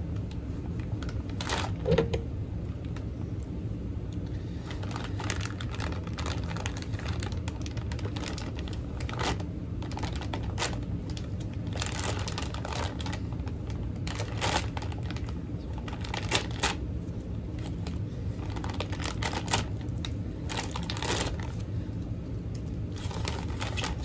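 Clear plastic bags crinkling and small hard parts clicking as skateboard trucks and their bushings are unwrapped by hand: scattered clicks and rustles over a steady low hum, the sharpest click about two seconds in.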